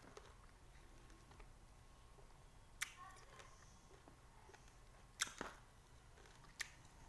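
A person eating small sour limes: a few short sharp smacks or clicks, about three spaced a couple of seconds apart, over a quiet room.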